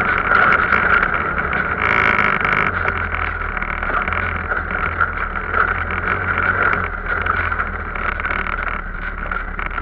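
Arctic Cat off-road vehicle running steadily while being ridden, its engine droning under continuous motion noise.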